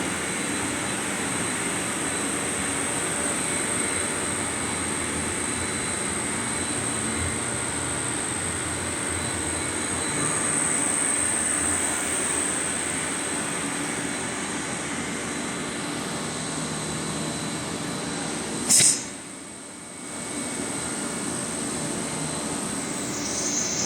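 Steady industrial machinery noise with a thin, high-pitched whine over it, from aluminium extrusion plant equipment. A sharp click comes about 19 seconds in, and the noise drops briefly before it returns.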